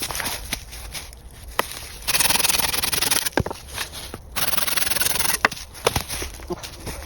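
Two long rasping strokes of a hand tool rubbing against wood, each about a second long, with small clicks and knocks of handling between them.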